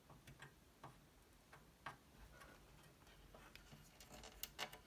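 Faint, irregular small clicks and taps from desoldering a transistor on a circuit board with a soldering iron and desoldering braid, and from handling the board. The clicks come more often and a little louder near the end.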